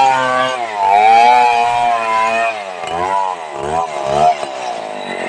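Stihl 070 chainsaw's large two-stroke engine running under load as its bar cuts through a log. The engine pitch sags and recovers in slow swells, then dips sharply several times in quick succession in the second half as the chain bogs in the wood.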